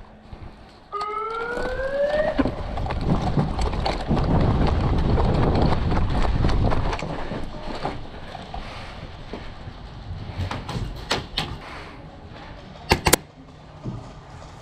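A short rising siren-like tone about a second in, followed by several seconds of loud rushing noise and a few sharp cracks near the end.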